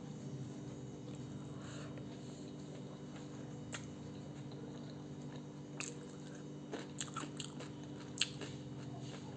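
A person chewing and eating a meal, with a handful of short, sharp clicks scattered through it, the loudest about eight seconds in, over a steady low hum.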